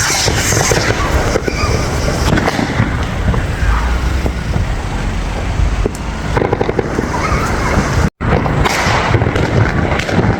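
Fireworks going off: many sharp cracks and bangs over a noisy street. The sound cuts out for a moment about eight seconds in.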